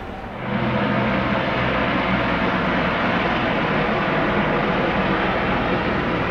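Airbus H130 single-turbine helicopter in flight: a steady rotor and turbine noise with a low hum, which jumps louder about half a second in and then holds.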